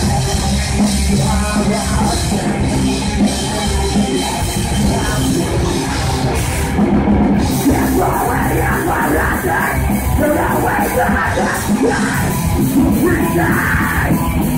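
Live heavy metal band playing: distorted electric guitars, bass and drum kit under harsh screamed vocals. The top end drops out for a moment about seven seconds in, and the screaming is strong after that.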